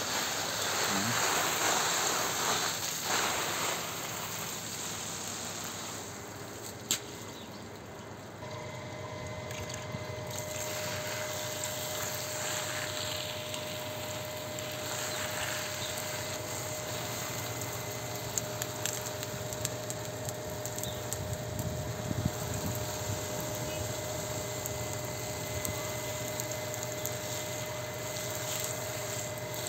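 Water spraying onto garden shrubs and foliage, a hiss that is strongest over the first few seconds. About eight seconds in, a steady motor hum with a high fixed whine starts and keeps on under the quieter spraying.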